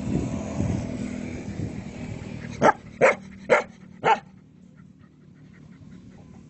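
A dog barks four times in quick succession, about half a second apart, about two and a half seconds in. A low, uneven rumble comes before the barks.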